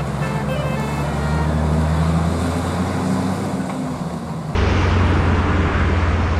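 Road traffic with a heavy vehicle's engine rumbling low and steady. About four and a half seconds in the sound jumps abruptly louder and rougher.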